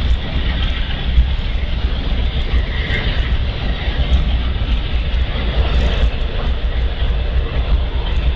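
Amtrak Superliner passenger cars rolling past on the rails, a steady loud rumble and roar.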